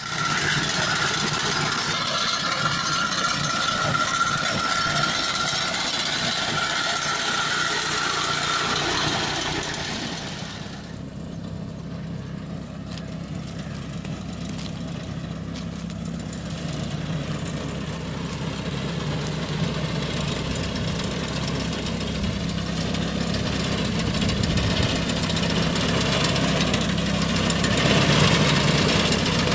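Small petrol engine of a walk-behind reaper running steadily as it cuts millet stalks. It is loud and close for the first ten seconds, then suddenly fainter, leaving a low steady hum that grows louder again toward the end.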